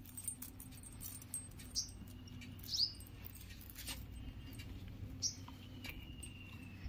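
German Shepherd whimpering softly: a few short high squeaks that drop in pitch and two thin, drawn-out whines, with faint clinks of a metal chain leash.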